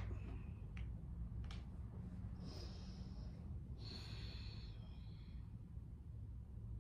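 A woman's slow breathing: a soft inhale about two and a half seconds in, then a longer exhale, over a steady low hum, with a few faint ticks early on.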